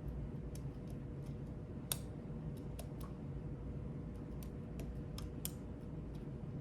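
Small, sharp metallic clicks of a lock pick and tension tool working the pin stack of a Master Lock lockout-tagout padlock, coming irregularly about a dozen times, the loudest about two seconds in, over a steady low hum.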